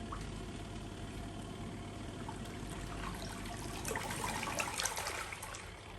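Water swishing and trickling inside the tub of a small folding portable washing machine, with a few louder splashy streaks about two-thirds of the way through.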